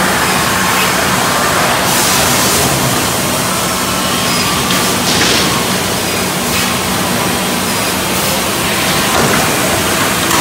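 Steady din of sawmill machinery running: conveyors and lumber transfer chains, with a low steady hum and a few short hisses.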